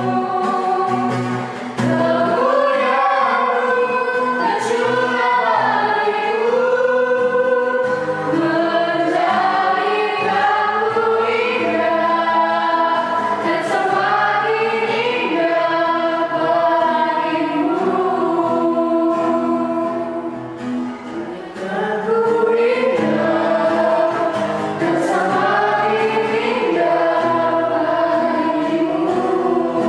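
A group of voices singing a Christian worship song together over steady instrumental accompaniment, with brief pauses between phrases about a second and a half in and again past the middle.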